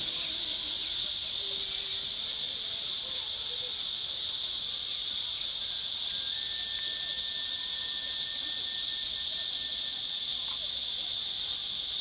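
A dense chorus of cicadas, a loud, steady, high-pitched buzzing hiss that never breaks or changes.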